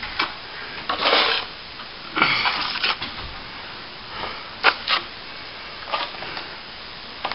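Steel plastering trowel spreading and smoothing corner cement across a ceiling. There are two scraping strokes of about half a second to a second each early on, then a few short sharp scrapes and taps.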